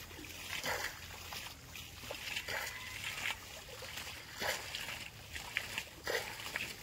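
Irregular splashing and sloshing of shallow muddy water as someone scoops and gropes in it by hand, a few short splashes every second or so.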